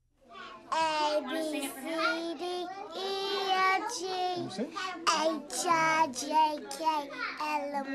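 Young children singing a song, starting just after a brief silence.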